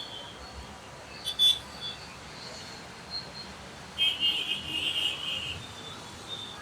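Steady city road traffic, with a short horn beep about a second and a half in and a longer stretch of horn honking from about four seconds in, lasting about a second and a half.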